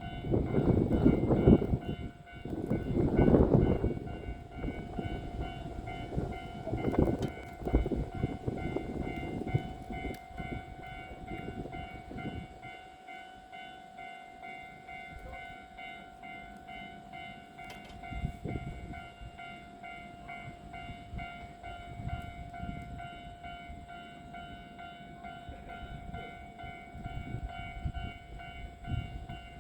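Electric train running over the rails through the station, loudest in the first few seconds with some clunks and then fading, over a steady electrical hum.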